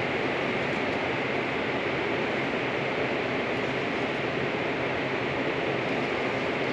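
Steady rushing noise like moving air, even in level and with no distinct events.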